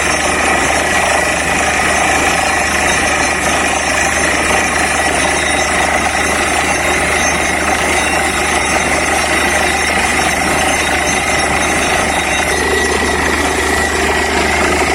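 Borewell drilling rig running steadily while drilling, its engine and percussive drill hammer going without a break.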